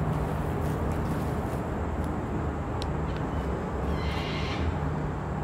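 Steady outdoor background noise with a low hum, and a brief high chirping sound about four seconds in.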